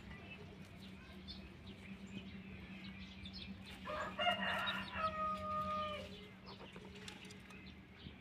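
A rooster crows once, about four seconds in. The crow lasts about two seconds and ends on a held note. Under it run a steady low hum and scattered faint chirps.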